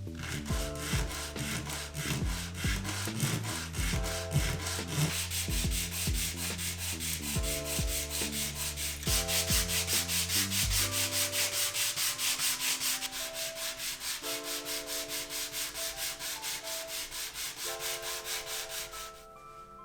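Rapid, even back-and-forth rubbing strokes, about five a second, as in hand sanding, stopping shortly before the end. Background music with soft melodic notes runs underneath.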